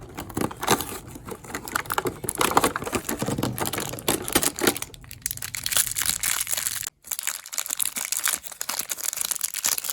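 Toy packaging being handled and opened, with dense, irregular crinkling and tearing that breaks off briefly about seven seconds in.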